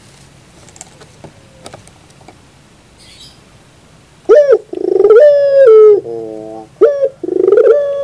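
Ringneck dove (burung puter) cooing: about halfway in, loud coos start, a rising note held briefly, then a stepped falling series and another long held coo. Before that only a few faint clicks.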